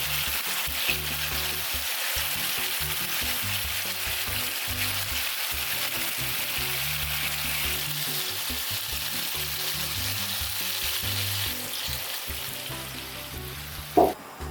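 Food sizzling steadily in a hot frying pan, easing off near the end, with one sharp knock just before the end.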